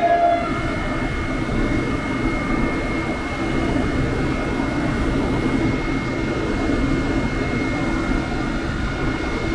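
Electric commuter train approaching from a distance: a steady rumble with a thin, high whine held at one pitch.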